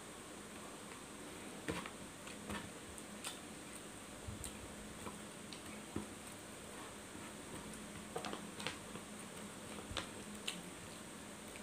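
Someone eating rice by hand: irregular soft clicks and smacks from chewing and from fingers working the rice on a paper wrapper, over a faint steady hum.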